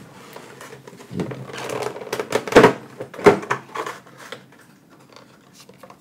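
Hands unpacking a display of Pokémon mini tins: packaging rustles and crinkles, with a series of sharp clicks and knocks, the loudest two in the middle. It dies down to faint handling near the end.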